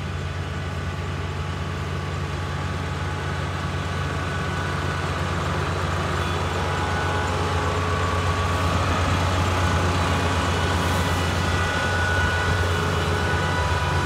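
Kubota ER448 four-row, 48-horsepower combine harvester running as it cuts rice: a steady low engine hum with several steady higher whining tones over it, growing louder as it comes closer.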